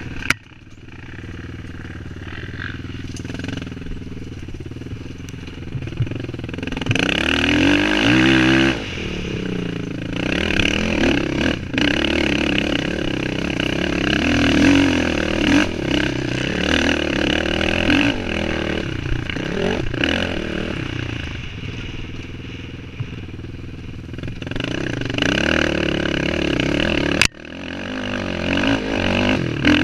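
Suzuki LT-R450 quad's single-cylinder four-stroke engine under hard throttle, its revs rising and falling as the rider accelerates and backs off. There is a sharp click just after the start and another near the end, each followed by a sudden drop in loudness.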